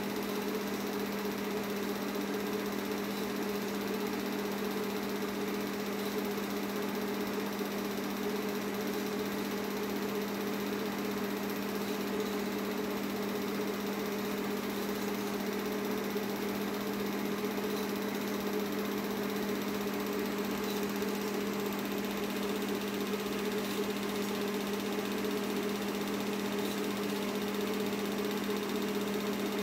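Film projector running: a steady motor hum with a continuous mechanical whir that does not change.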